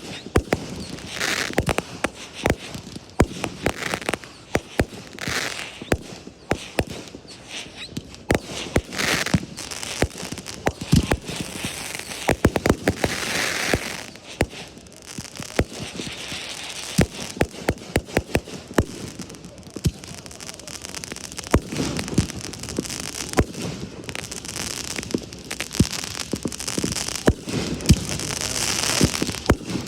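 Fireworks display: a steady series of sharp bangs from bursting aerial shells, with stretches of dense crackling and hissing in between.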